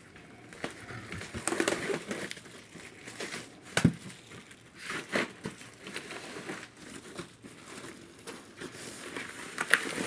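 A furnace filter being slid out of its track inside the furnace cabinet. The cardboard frame and filter media scrape and crinkle, with scattered clicks and one sharper knock about four seconds in.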